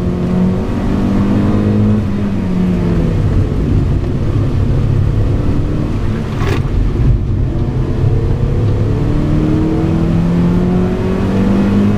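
Mazda MX-5 NB's four-cylinder engine heard from inside the cabin, its revs rising and falling as it is driven on the track. The pitch drops around three seconds in and climbs slowly over the last few seconds. A single sharp knock comes about six and a half seconds in.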